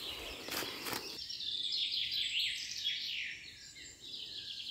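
Birds chirping: a rapid run of short falling chirps, densest from about one and a half to three and a half seconds in, with a couple of sharp knocks in the first second.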